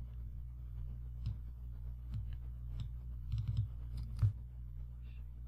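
Computer mouse clicks: a few single clicks spaced about a second apart, a quick run of clicks just past the middle, and the loudest click near the end, over a steady low hum.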